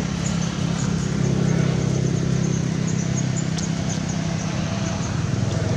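Steady low hum of a running engine, with short high chirps scattered through it.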